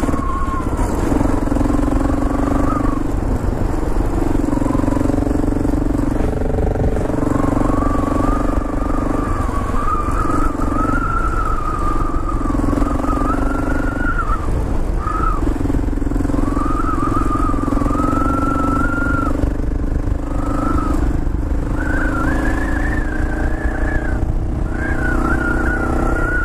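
Kawasaki KLR 650's single-cylinder four-stroke engine under way, its note rising and falling several times as the throttle is worked, over a steady low rumble.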